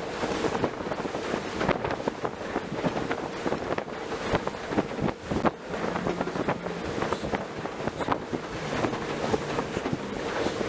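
Motorboat running at speed while towing a banana boat: a steady engine drone under the rush of the wake, with wind buffeting the microphone in many gusty thumps.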